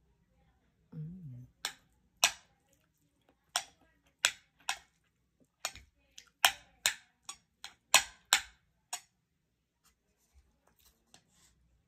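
Close-miked eating sounds: a brief low hum about a second in, then a run of sharp, irregularly spaced mouth clicks and smacks from chewing.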